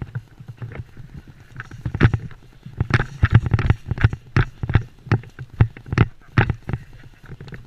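Airsoft rifle fired in a run of quick single shots, about two or three a second, laying down cover fire.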